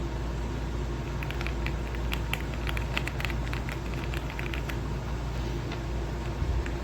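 Typing on an AULA F75 mechanical keyboard with pre-lubed Reaper switches: a quick, uneven run of key clicks that starts about a second in and thins out after about five seconds, with a few more near the end. A steady low hum runs underneath.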